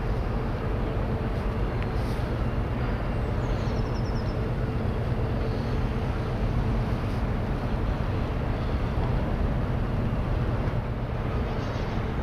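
The ro-ro passenger ferry Pride of Rotterdam's engines running as the ship arrives: a steady low drone with a hum in it.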